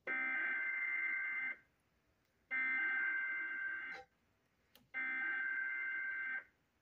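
NOAA Weather Radio Specific Area Message Encoding (SAME) header sent three times: three shrill, buzzy bursts of digital data, each about one and a half seconds long and a second apart. They mark the start of a new emergency alert broadcast, here a severe thunderstorm warning.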